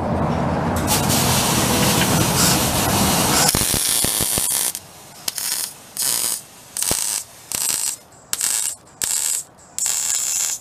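MIG welder arc crackling in short bursts of about half a second, five or so in a row with short pauses between, as a new flex pipe is welded into the exhaust pipe. Before the bursts there are four to five seconds of steady loud noise.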